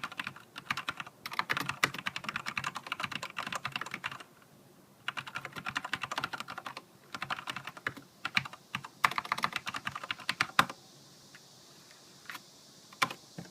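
Filco Majestouch mechanical keyboard with linear Cherry MX Black switches and heavy keycaps being typed on in fast bursts with short pauses. The typing stops about ten and a half seconds in, followed by a few single key presses.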